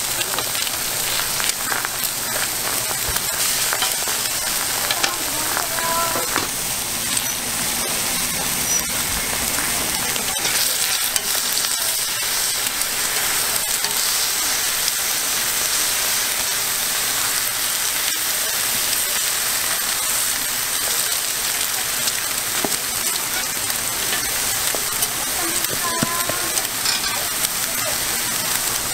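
Eggs, meat patties and toast frying on a flat-top griddle: a steady sizzle.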